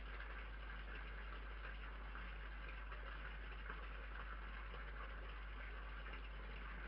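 Steady hiss with a constant low electrical hum from a CCTV camera's microphone, unchanging throughout.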